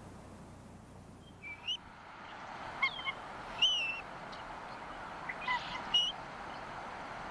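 Bald eagle calls at the nest: several short, high-pitched chirps and whistles spaced a second or so apart, some sliding down in pitch, over a steady soft background hush.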